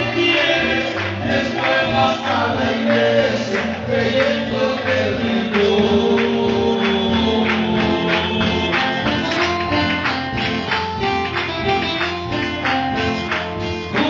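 Live band music: keyboard and guitar with voices singing over a steady beat of small hand percussion.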